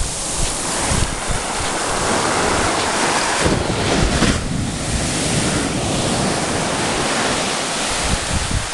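Ocean surf washing up a sandy beach: a steady hiss of breaking waves and foam, with wind rumbling on the microphone.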